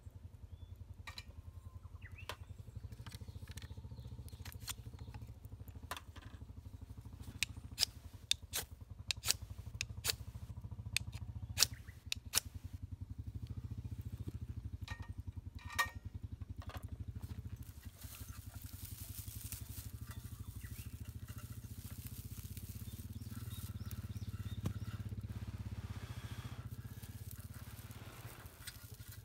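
Dry grass tinder crackling and rustling as it is handled and shaped into a nest. A run of sharp clicks and crackles comes in the first half, followed by a longer hissing rustle. A steady low rumble sits beneath it all.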